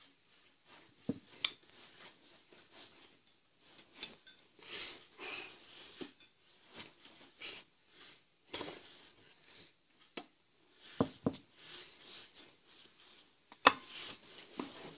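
Leather jacket rustling and hands brushing and knocking together while signing, with a few sharp knocks a little over a second in, around eleven seconds and near the end.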